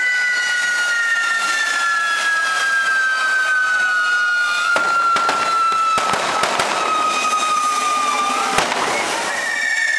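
Correfoc fireworks: handheld spinning spark fountains (carretilles) hissing, with a whistling tone that slides slowly down in pitch. Sharp firecracker bangs go off about five to six seconds in, and the loudest comes near the end.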